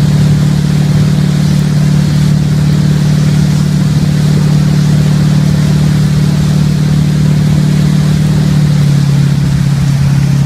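Tow boat's engine running steadily at speed, with a constant rush of water from the wake. The engine's hum drops slightly in pitch near the end.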